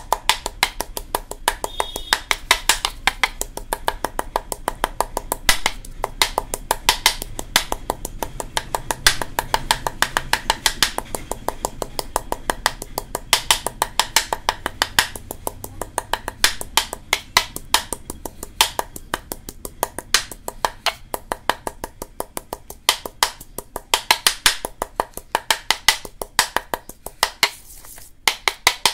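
Ceramic pestle striking and grinding in a ceramic mortar, pounding fresh atibala leaves to a fine paste: a fast, uneven run of sharp clicking knocks, several a second.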